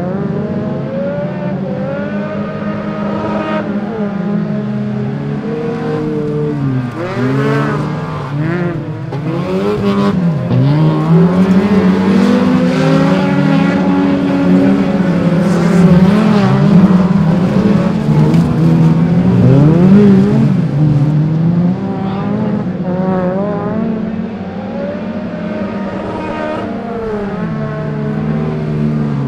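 Several autospeedway stock cars from the over-1700cc class racing round a dirt oval. Their engines rev up and down out of step with each other as they take the bends. The sound is loudest about halfway through.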